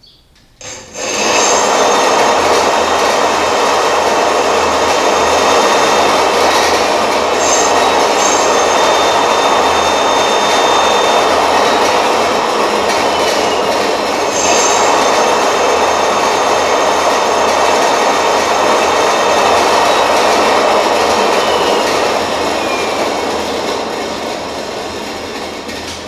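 48V 1000W electric-bicycle hub motor running under throttle and spinning its wheel: a loud steady whir with a high motor whine that starts about a second in and gradually eases off near the end.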